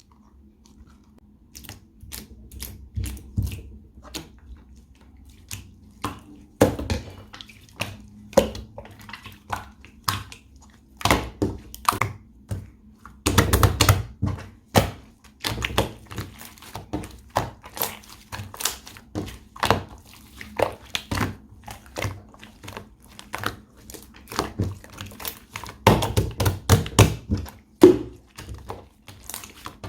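Grey slime being pressed, poked and stretched by hand, giving irregular sticky clicks and pops, thickest in clusters about halfway through and again near the end.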